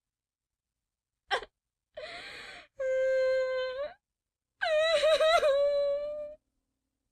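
Woman crying: a sharp gasping intake of breath, a breathy sob, then two wailing cries, the second longer with a quavering pitch.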